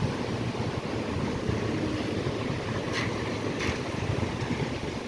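Wind buffeting the microphone over a steady rushing noise, with two brief sharp sounds about half a second apart just past the middle.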